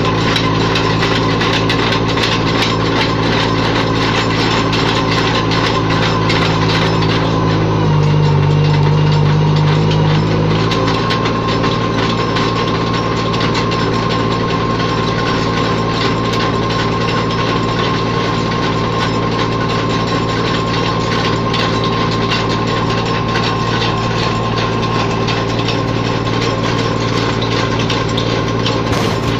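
Tractor's diesel engine running steadily to power a mounted earth auger boring into soil. About eight seconds in, the engine note dips and swells slightly for a couple of seconds, then settles back.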